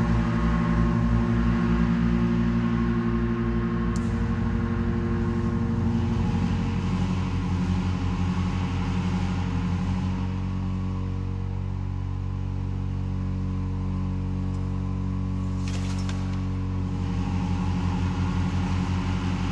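Pipe organ (Wolff & Associés opus 24) holding a cluster of low sustained notes that beat against each other in a fast pulse, the speed of the beating shifting a few times, with amplified percussion instruments buzzing in sympathy with the organ tones.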